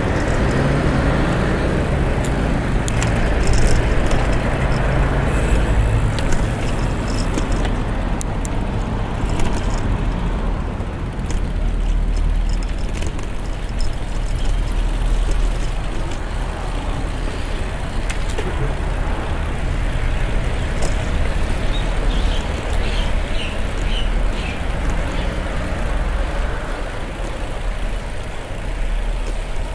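Steady road traffic noise with a continuous low rumble, heard from a moving bicycle.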